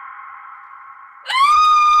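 A woman screaming: the end of one held scream fades out, then about a second in a new high-pitched scream starts suddenly, sweeping up and holding one steady pitch.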